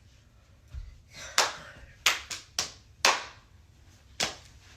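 Hand claps, about six sharp ones in an uneven cheer-routine rhythm, with a low stomp of a foot on the floor just under a second in.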